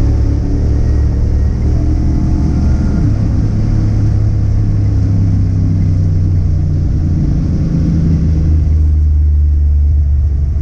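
Car engine rumbling steadily under way, its pitch shifting only slightly up and down.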